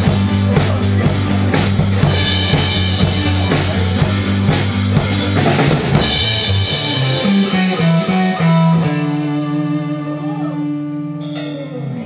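Live band of electric and acoustic guitars and a drum kit playing the closing bars of a song. A steady drumbeat drives the first half. Then the beat stops and a held guitar chord rings with short guitar phrases over it, and a cymbal hit near the end starts the fade-out.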